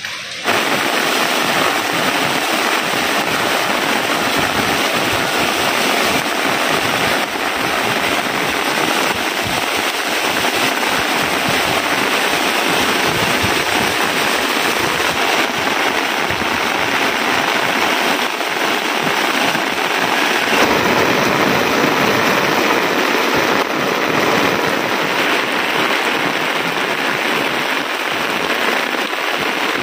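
Heavy rain falling, a loud, steady, dense hiss that cuts in abruptly just after the start and holds.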